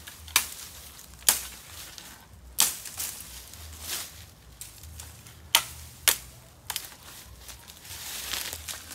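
Sharp, irregular snaps and clicks, about seven in nine seconds, as side branches are trimmed off a freshly cut bamboo cane.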